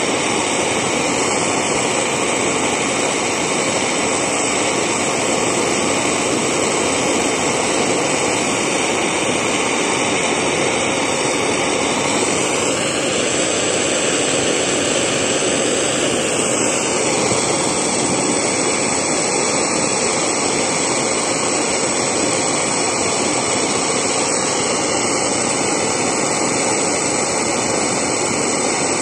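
1949 Spit-Fire A-100 alcohol blowtorch burning, its flame jet giving a steady, loud rushing hiss.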